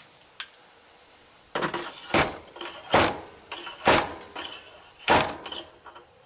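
Metal motorcycle fork parts clanking and knocking against each other and the bench. There is a small click, then a clattery run with four sharp knocks about a second apart, each ringing briefly.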